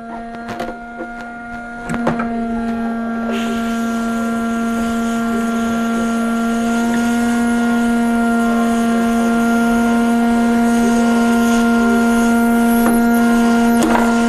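Hot air rework station blowing on a circuit board to desolder a chip. Its blower hums steadily throughout, and a strong rush of air comes in about three seconds in. A few light clicks sound in the first two seconds.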